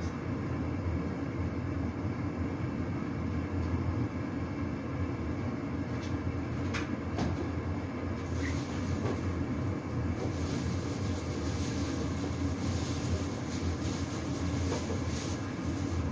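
A steady low machine hum, with a few light clicks about six or seven seconds in as a refrigerator door is opened.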